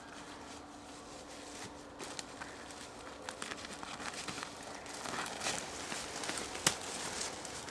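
Footsteps crunching over the dry woodland floor. Irregular crackles start about two seconds in and grow louder and denser, with one sharp snap near the end.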